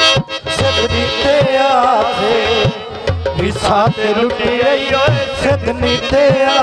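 Live Punjabi folk song: tabla drumming under a sustained accompaniment, with a singer's voice in a long wavering run without clear words.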